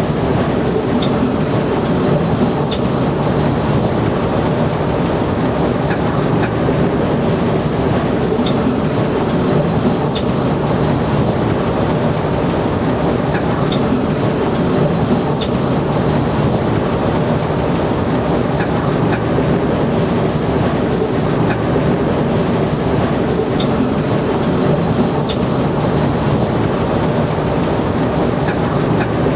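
Inside the driver's cab of an SNCF Z 5300 electric multiple unit running at speed: a steady rumble of wheels on rail and running gear, with occasional light clicks.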